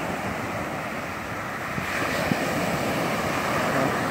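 Ocean surf breaking and washing up onto a sandy beach: a steady rush of waves, with wind.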